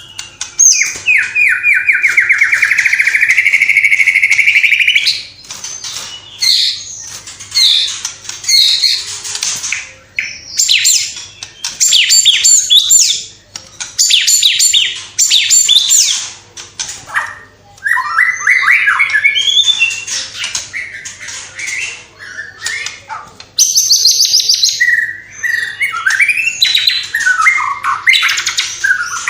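White-rumped shama singing loudly: a long, fast trill in the first few seconds, then a varied run of chirps, rattles and whistled phrases. The song is filled with mimicked calls of other birds.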